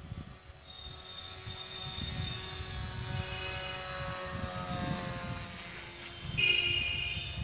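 Electric motor of a 4S-LiPo-powered RC scale model F-22 Raptor whining as the plane flies past, its pitch sliding down as it passes. A louder, higher whine starts suddenly near the end.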